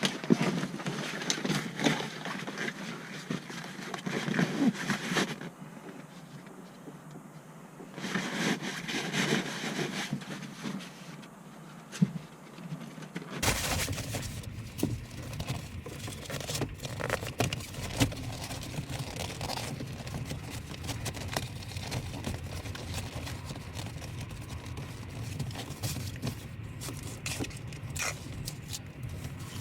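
Fabric seat cover being handled and fitted onto a truck seat: irregular rustling and scraping, with scattered clicks from straps and hooks. About halfway through, a steady low rumble joins in.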